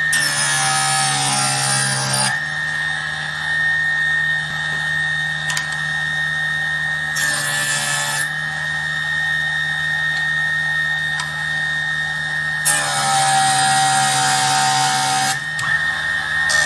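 Homemade mini table saw running with a steady high whine, cutting into wood three times: near the start, briefly about seven seconds in, and for about three seconds from thirteen seconds. Each cut adds a harsh rasp and the pitch dips slightly under the load.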